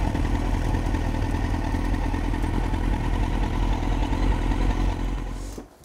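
Suzuki sport motorcycle engine running steadily, fading out near the end.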